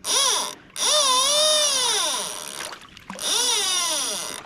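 Fishing reel drag squealing three times as a hooked king mackerel pulls line off, the pitch rising and falling with the speed of the fish's run.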